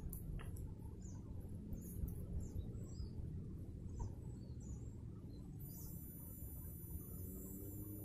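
Field ambience: small birds chirping with short, high, scattered calls over a low steady background rumble, and about two-thirds of the way in a steady high-pitched insect trill begins.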